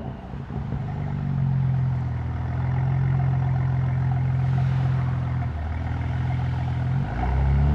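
Tuned 750 hp BMW M4's twin-turbo straight-six running under steady throttle with a held, even engine note; it eases off briefly about five and a half seconds in and changes pitch near the end, as at a gear change.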